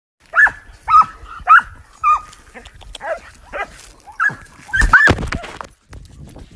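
Dog barking in a string of short, high barks, about one to two a second.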